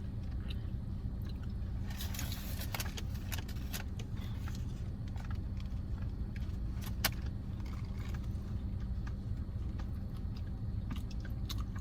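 Steady low hum of a car cabin with the engine idling, with crackling about two seconds in and small clicks, one sharper click about seven seconds in, from handling food wrappers and eating.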